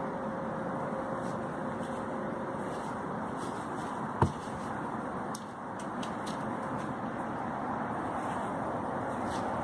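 A steady rushing background noise, with a single sharp knock about four seconds in, typical of one log set down on another.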